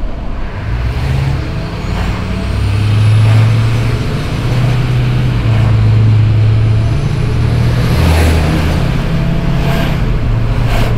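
Ford Excursion's V8 turbo-diesel pulling hard under throttle, its deep engine note loud and stepping up and down. A faint rising turbo whistle sits above it about two to four seconds in.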